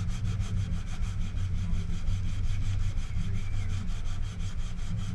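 Hand sanding of a canoe hull with sandpaper: quick, even back-and-forth rubbing strokes, several a second, over a steady low hum.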